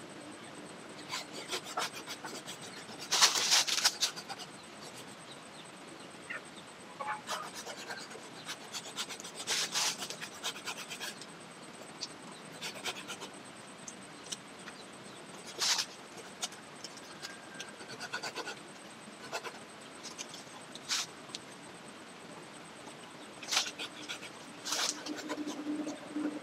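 Hand pruning saw rasping into a lychee branch in short, irregular bursts of strokes, the loudest burst about three seconds in.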